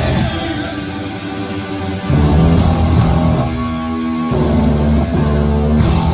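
Live rock band playing loud electric guitar chords over bass, each chord held for about two seconds before changing.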